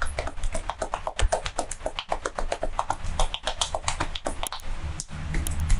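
Fast, uneven run of light hand taps and slaps from a percussive massage, the barber's hands striking the client's head or body many times a second, over a low steady hum.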